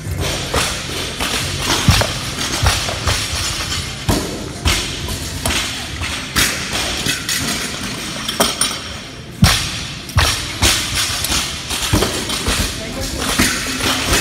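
Barbells loaded with rubber bumper plates dropped onto a rubber gym floor during snatches: repeated heavy thuds a second or more apart, the loudest about nine seconds in, over background music and voices.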